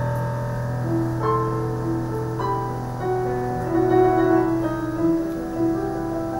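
Piano played slowly and softly: a low bass note held throughout while a melody of single notes moves above it, a new note about every second.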